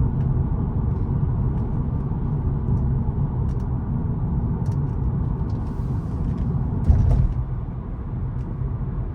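Car driving, heard from inside the cabin: a steady low rumble of engine and road noise. There is a brief louder bump about seven seconds in.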